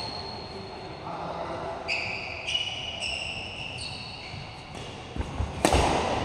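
Badminton rally in a large indoor hall: a string of sharp racket hits and shoe squeaks on the court mat, each leaving a short high ringing tail. There are heavy footfalls and one loudest strike near the end.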